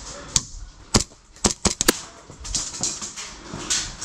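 Airsoft pistol shots, six sharp cracks. A single shot comes first, another about a second in, then a quick string of four within half a second.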